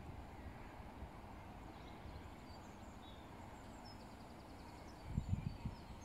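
Faint open-air countryside ambience with small birds chirping in the distance, and a few low thuds about five seconds in.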